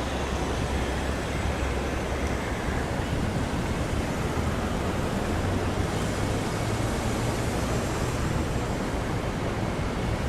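Niagara Falls' falling water: a steady, even rush of noise with no separate events.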